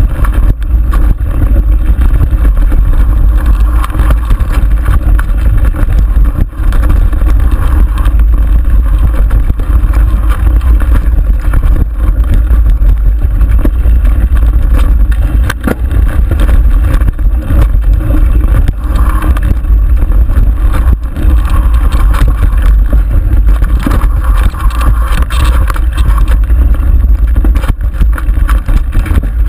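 Wind buffeting the microphone of a handlebar-mounted camera on a mountain bike descending a dirt singletrack, with scattered rattles and knocks from the bike over bumps in the trail.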